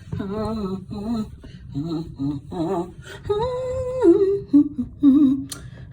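A woman humming a tune to herself, wordless, with one long held note near the middle. A short sharp click near the end.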